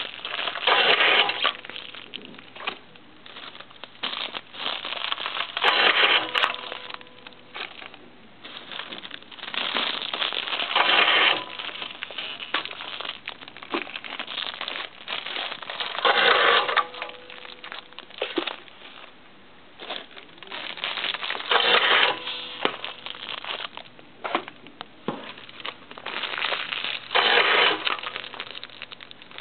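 Clear cellophane bags of foil-wrapped candies crinkling as they are filled and fed one after another into a Tie-Matic bag-tying machine. A louder burst about a second long comes roughly every five to six seconds, six times in all.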